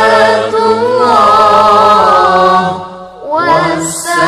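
Music: a voice singing an Arabic sholawat, a devotional song calling blessings on the one to whom the Quran was revealed. The word "ṣalātu" is drawn out in a long, wavering, ornamented held note. It breaks off briefly about three seconds in, and the next phrase begins.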